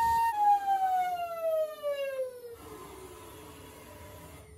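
High-speed CNC engraving spindle spinning down: its steady whine starts falling in pitch about a third of a second in and keeps sliding lower for over two seconds, over a rushing hiss that stops about two and a half seconds in. The cutting pass is ending ahead of an automatic tool change.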